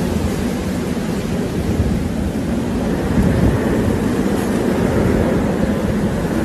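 Hurricane-force wind and driving rain, a loud, steady rush with gusts buffeting the microphone.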